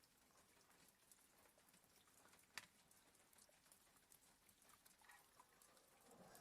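Near silence: faint rain ticking lightly against a window glass, with one sharper tap about two and a half seconds in.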